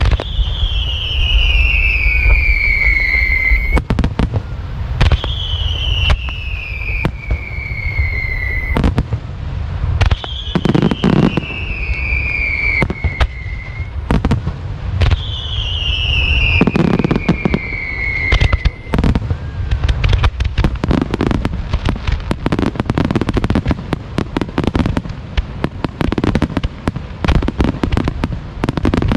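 Fireworks display: aerial shells and star mine launches banging over a continuous low rumble, with four long whistles each falling in pitch, about five seconds apart. Near the end the bangs come thick and fast as a wide star mine barrage fires.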